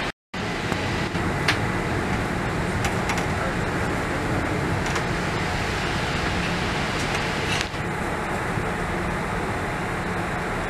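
Steady rushing hum of a Boeing 787-8's cabin air conditioning while the aircraft sits parked at the gate, heard from inside the cabin, with a few faint clicks. The sound drops out for a split second right at the start.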